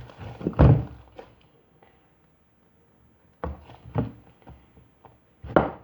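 A few dull thumps and knocks on a table, with a long silent gap between the first and the rest.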